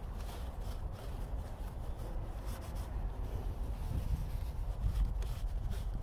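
A paper towel rubbing and wiping a car's side-mirror housing in quick strokes, over a low, uneven rumble.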